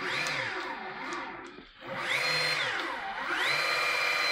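CYC Photon mid-drive e-bike motor run up on the thumb throttle three times: a smooth electric whine that rises, falls away, rises and falls again, then rises and holds steady near the end.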